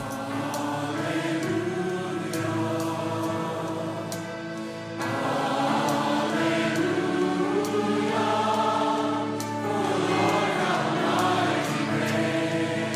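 Christian worship music: a choir singing over sustained chords, growing fuller and louder about five seconds in.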